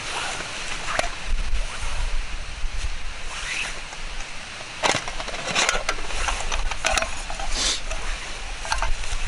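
Wood campfire crackling, with irregular sharp pops and knocks.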